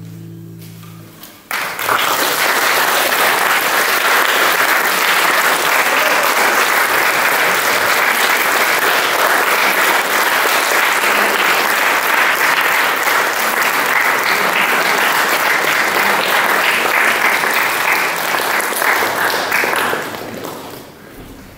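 The last chord of a classical guitar rings and fades, then an audience applauds steadily for about eighteen seconds before the clapping dies away near the end.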